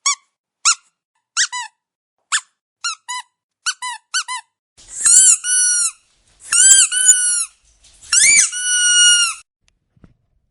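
Dog's squeaky toy squeaked over and over: about a dozen short, sharp squeaks, some single and some in quick pairs, then three longer squeaks near the end. Each of the longer ones is a quick rising squeak drawn out into a held squeal.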